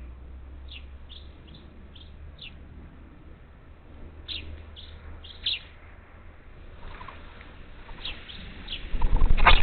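Parakeets at a feeder giving short, sharp chirping calls, each sliding down in pitch, repeated every second or so. About nine seconds in there is a brief, loud burst of rustling noise.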